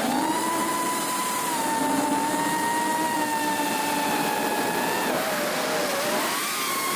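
Electric motors and propellers of an FPV drone whining steadily with a hiss, weighed down by an extra camera; the pitch drops about five seconds in as the throttle eases, then rises again near the end.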